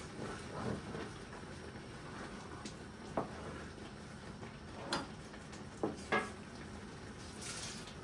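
Kitchen dishes and utensils being handled: a handful of short, light clinks and knocks, a few seconds apart, with a brief soft rustle near the end.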